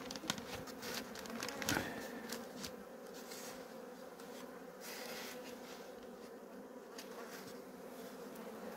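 Honey bees buzzing steadily around the hive, a colony the beekeeper calls restless, with a couple of light knocks in the first two seconds.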